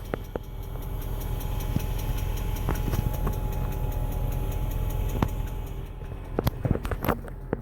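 The BMW-built 4.4 L M62TUB44 V8 of a 2003 Range Rover HSE idling, with a fast, even ticking from the top of the engine that the owner puts down to a hydraulic tappet. A few separate knocks come near the end.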